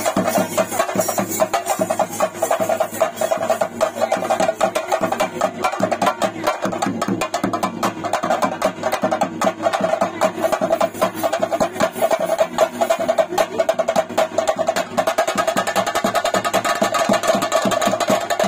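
Fast, dense chenda drumming of a theyyam ritual ensemble, with cymbals, a rapid unbroken run of sharp strokes.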